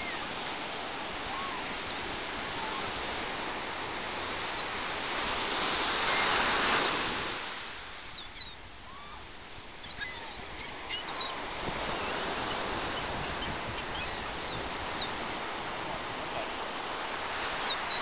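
Steady rush of wind and surf that swells a little before halfway and then drops off, with short high seagull calls scattered over it, several in a cluster a little after halfway.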